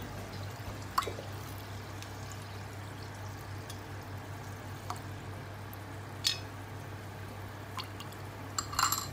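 Boiled monk fruit (luo han guo) tea poured from a swing-top glass bottle over a spoon into a glass of chilled soda water, a steady pour with a few light clinks of glass and metal, one about a second in and more later.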